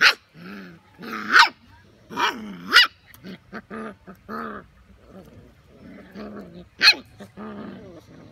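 Young puppies play-fighting, growling and whining, with sharp high yips and barks breaking in: loud ones at the start, at about one and a half and three seconds in, and again near the end.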